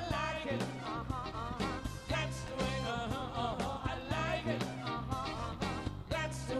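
A woman singing into a handheld microphone over a live band, with drums keeping a steady beat under bass and guitar.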